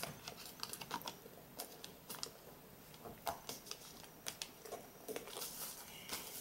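A sheet of origami paper being folded and creased by hand on a tabletop: faint, irregular paper crinkles, taps and clicks as the folds are pressed down.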